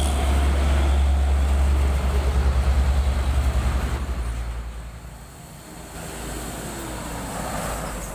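Heavy vehicle passing close by on the road: a deep engine rumble that pulses and then fades about halfway through. Another vehicle approaches near the end.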